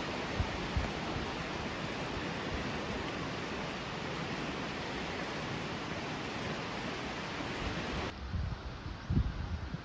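Fast-flowing river rushing over rapids, a steady full hiss of water. It cuts off abruptly about eight seconds in, leaving gusts of wind buffeting the microphone.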